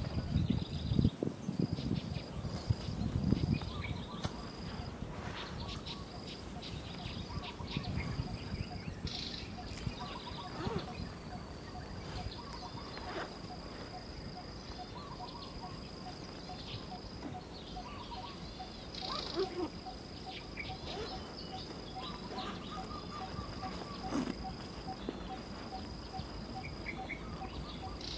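Natural outdoor ambience of insects and birds: a steady high insect trill that breaks off briefly now and then, a faint evenly repeating pulse, and scattered bird chirps. Low rumbling in the first few seconds.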